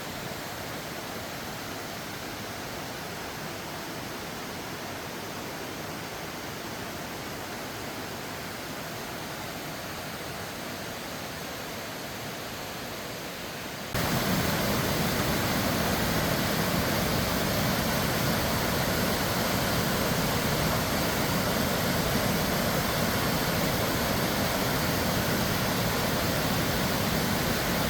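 Waterfall's steady rush of falling water, which jumps abruptly louder about halfway through and then holds steady.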